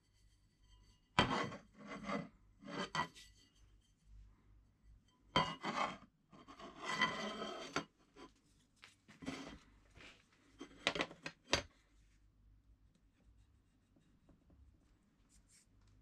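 Scraping, rasping strokes on a hard surface. They come in several short groups, and one stroke in the middle lasts about a second.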